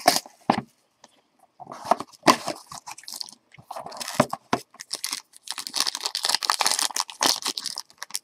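Plastic wrapping on a trading card box being torn open and crinkled by hand, in irregular rustles and scrapes with a short pause about a second in.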